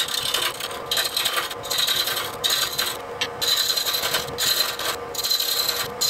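Turning chisel cutting a small wooden wheel hub spinning on a wood lathe's pen mandrel. The cut is a hissing scrape in a series of light passes, broken by several short gaps where the tool lifts off. A steady hum from the running lathe sits under it.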